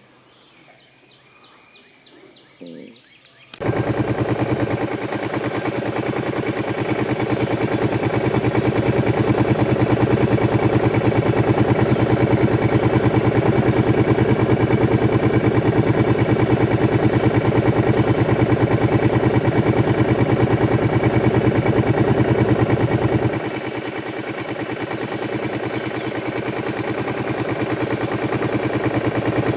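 Small boat motor running hard with a rapid, even popping beat. It cuts in loud about three and a half seconds in, eases off a little about two-thirds of the way through, and picks up again near the end.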